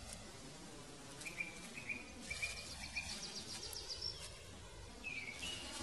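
Birds calling in a quiet forest: a run of short, high chirps about a second in and another short falling call near the end, over a faint steady hiss of forest ambience.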